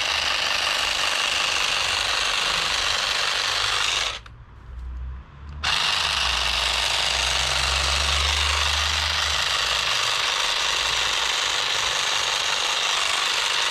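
Small electric shrub trimmer running and cutting boxwood, its blades giving a steady buzz. It runs about four seconds, stops briefly, then runs again for about eight seconds.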